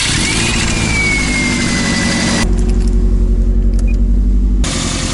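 Subaru flat-four engine just after a cold remote start following an overnight sit, running at raised revs, with a whine that rises and then slowly sinks in pitch over the first two and a half seconds. The owner puts the odd start-up noise down to the starter's bendix, perhaps with water in it.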